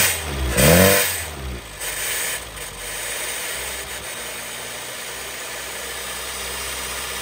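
1975 Honda CVCC four-cylinder engine revved twice in quick succession, then settling to a steady idle. It runs loud because of the exhaust at the pipe.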